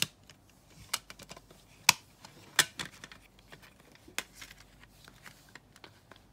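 Plastic CD jewel case clicking and clacking as a disc is pressed onto its centre hub and the case is closed: a string of sharp clicks, the loudest around two seconds in.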